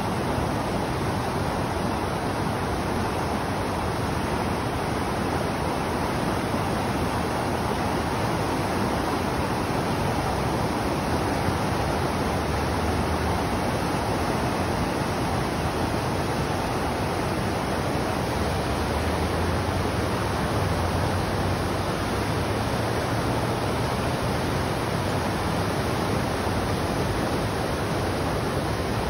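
A river in flood after heavy rain, overflowing its banks and pouring over rapids: a steady, loud rush of water.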